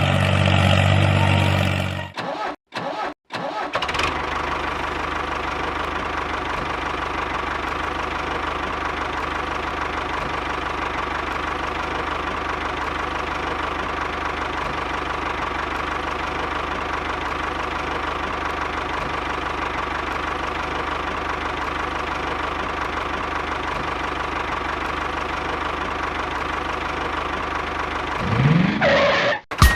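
A motor running at a steady, even pace with a constant whirring hum, after a few abrupt cuts in the sound about two to three seconds in. Near the end it rises briefly in pitch, then cuts off.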